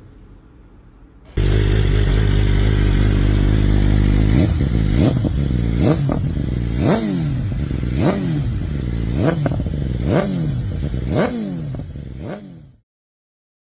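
BMW M1000RR inline-four superbike engine through an Akrapovič exhaust, starting loud and running steadily at idle, then blipped about nine times in quick succession, each rev shooting up and dropping straight back. The sound cuts off suddenly near the end.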